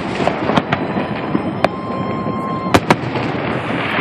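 Aerial fireworks show: shells bursting in sharp bangs at irregular intervals, two in quick succession near the end, over a continuous crackling rumble. A thin steady tone sounds for about a second in the middle.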